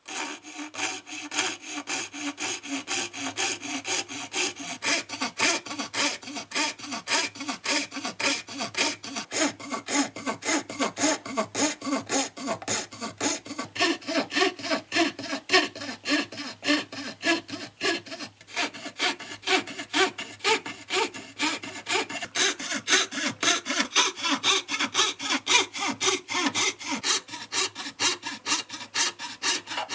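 Jeweler's piercing saw cutting through a wooden board by hand, its fine blade rasping in quick, even strokes at about three a second.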